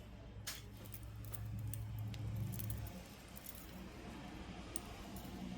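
Black tourmaline and clear quartz beads clicking and clinking together as a bead bracelet is handled, in a few scattered taps. A low hum rises and then stops about three seconds in.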